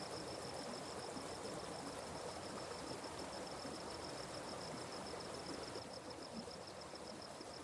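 Stream water running with an even rushing, under an insect's steady, high, rapidly pulsing trill.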